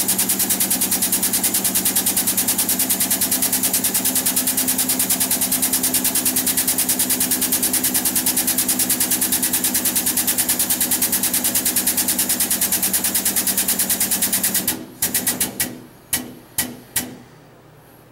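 Handheld power tool driving a coilover load tester to compress a coilover shock through its travel. It runs with a rapid, even pulsing, then stops about 15 seconds in and is blipped in five short bursts.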